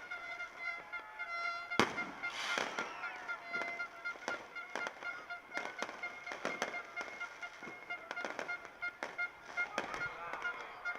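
Fireworks going off in quick succession, a string of sharp bangs and crackles with one louder bang about two seconds in. Steady high horn-like tones and short sliding whistles sound over the bangs throughout.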